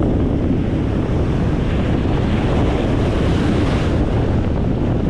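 Strong onshore storm wind buffeting the microphone with a steady low rumble, over breaking surf. A brighter hiss of surf washing swells about a second and a half in and fades near four seconds.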